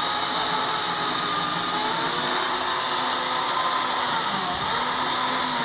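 Kingson cordless electric chainsaw cutting through a felled tree trunk: the motor and chain run steadily in the wood, with no engine sound.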